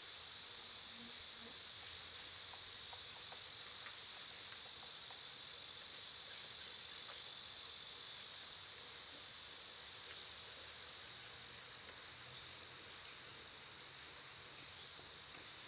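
Steady chorus of insects, a continuous high-pitched trill that holds without a break.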